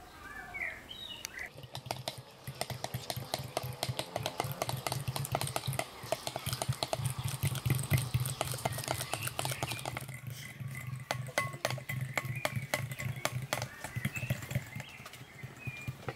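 Metal utensil beating eggs in a glass bowl: a fast, steady run of clicks against the glass that starts about a second and a half in, over a low steady hum. A bird chirps briefly at the start.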